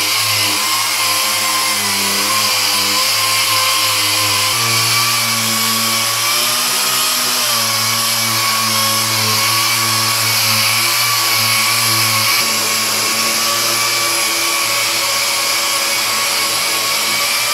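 Air-powered dual-action (DA) sander running steadily on a flat 20-gauge steel sheet with 120-grit paper, scuffing the metal and taking off light surface rust. It makes a loud, even whirring hiss with a faint steady whistle. A low hum underneath shifts about four seconds in and fades out around twelve seconds.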